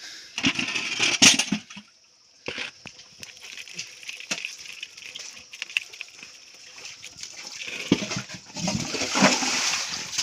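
Water splashing and sloshing as hands scoop through a shallow muddy pool and a bucket of water. There are splashy bursts from about half a second in and again near the end, with a brief lull after two seconds.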